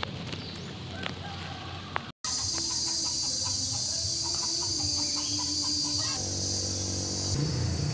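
Chickens clucking over a steady high-pitched drone. Before a brief dropout about two seconds in, wind rumbles on the microphone.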